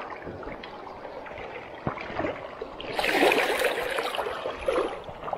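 A small hooked trout splashing at the river's surface as it is reeled in to the net, over a steady wash of flowing water; the splashing is loudest in a burst about three seconds in.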